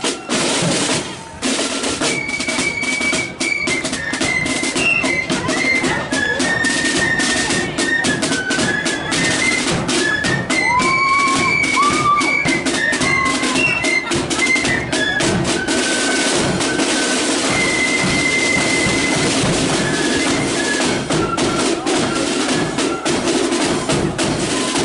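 Marching flute band playing: a snare drum roll, then flutes take up the melody over snare and bass drum about two seconds in.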